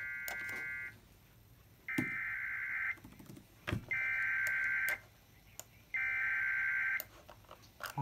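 Emergency Alert System SAME header tones from a weather radio stream, played through laptop speakers: four data bursts of about a second each, spaced about a second apart, with a few mouse and keyboard clicks between them. The bursts are the coded header that opens a severe thunderstorm warning.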